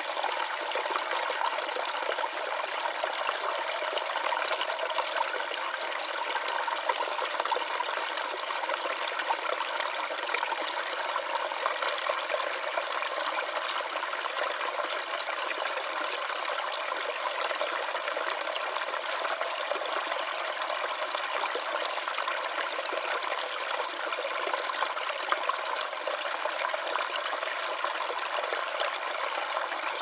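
Small woodland stream running over rocks in a little cascade: a steady, even rush of splashing water with no deep rumble.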